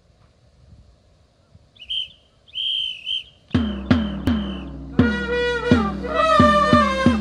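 Two whistle blasts, a short one then a longer one, then three strikes on a large drum count the band in; about five seconds in, several layered trumpets start a Japanese pro-baseball cheer song (ōenka) over a steady drum beat.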